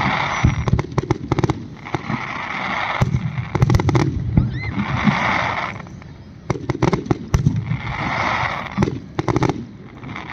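Fireworks display: quick volleys of bangs and sharp cracks, each followed by about a second of crackling hiss, coming again every three to four seconds.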